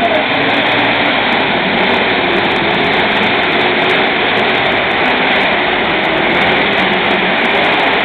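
A competition pulling tractor's engine running at full power as it drags a weight-transfer sled down a dirt track, a loud, steady, unbroken roar that echoes around the arena.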